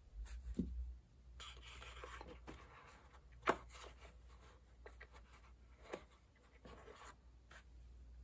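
Hands unboxing a GoPro Hero 11 camera: soft rustling and scraping of the packaging, with two sharp clicks, about three and a half and six seconds in.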